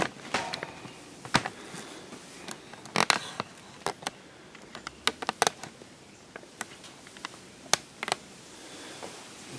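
Scattered clicks and knocks of a handheld camera being carried and handled, over quiet garage room tone; the loudest knock comes about three seconds in.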